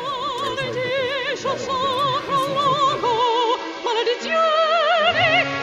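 Operatic singing with a wide, wavering vibrato over sustained instrumental accompaniment; the melody steps up higher about four seconds in.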